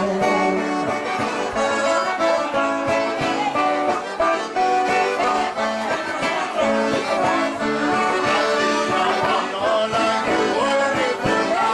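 Live band music: a piano accordion playing with strummed acoustic guitars, and men singing along.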